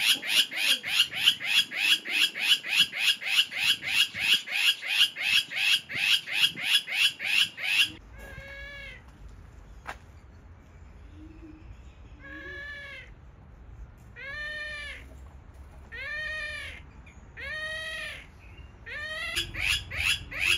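Caged birds calling: a loud, fast run of repeated rising notes, about four a second, for the first eight seconds. Then, after a short lull, come six drawn-out, meow-like calls one to two seconds apart, and the fast run starts again at the very end.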